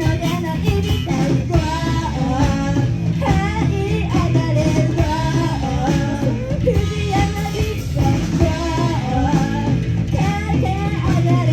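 A live rock band playing a song: a lead vocal sung over electric guitar and a steady rhythm section.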